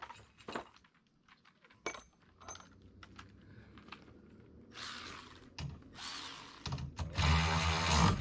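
A few light clicks of bolts and hardware being handled, then a cordless power drill run in three short bursts, the last and loudest about a second long near the end, driving the bolts tight on the dredge frame.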